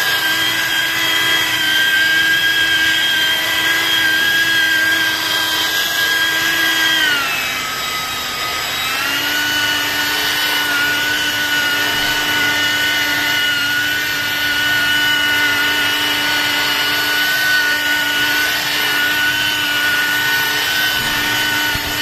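Corded electric car polisher running with its pad on a car's painted door panel: a steady motor whine. About seven seconds in the whine drops in pitch as the motor slows, then it picks back up around nine seconds and holds a slightly lower steady pitch.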